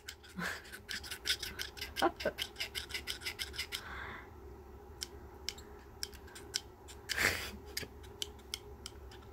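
Squeaky rubbery clicks of a textured silicone chew toy bitten repeatedly between the teeth as a jaw exercise. A quick run of about five a second comes first, then slower, more spaced bites.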